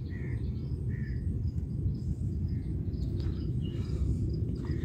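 Outdoor ambience: faint bird chirps repeating every second or so over a steady low rumble.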